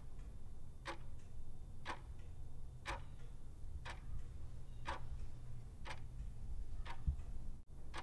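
Clock-tick sound effect ticking about once a second as a quiz countdown timer while the answer is awaited, over a steady low hum.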